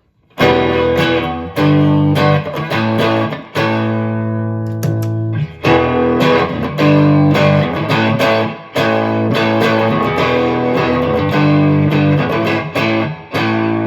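Electric guitar chords played through a compressor into a Pure Sky overdrive pedal, for a lightly driven, amp-like tone. The chords ring out and change every second or two, with brief stops between phrases.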